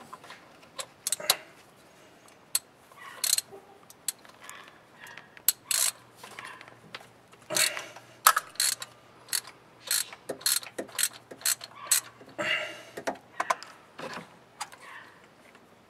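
Socket ratchet wrench clicking in short, irregular runs as it is worked back and forth, with sharp metallic clicks and taps of the tool against engine parts.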